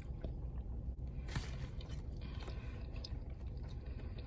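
Faint chewing of a mouthful of a bacon, egg and cheese breakfast sandwich, with a steady low hum underneath.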